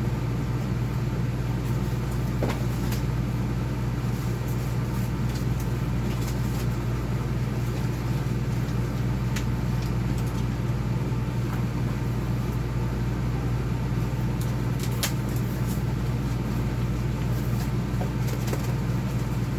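A steady low mechanical hum, like a motor running, unchanging throughout, with a few faint clicks and crinkles of a package being opened.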